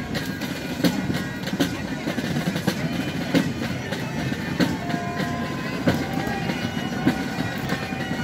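Distant drumming of a fife and drum corps: sharp drum strokes at uneven intervals of about a second over a steady low rumble of outdoor noise, with a few faint high notes in the second half.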